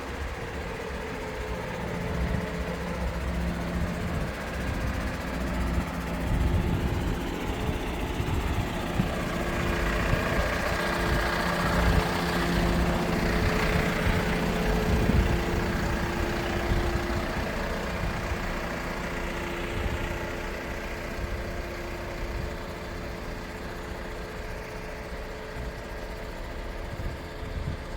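Truck engine running steadily, the engine of a sky truck (aerial work platform truck), with a low rumble that grows louder around the middle and then eases off.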